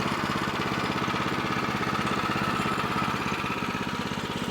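Woodland Mills portable sawmill's small gas engine running steadily with an even, rapid pulse.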